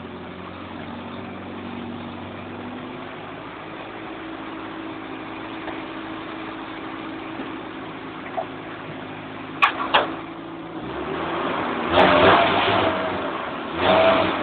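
1974 Mk3 Mini 1000's A-series four-cylinder engine idling steadily. Two sharp clicks come just under ten seconds in, then the engine grows louder in short bursts of revving near the end.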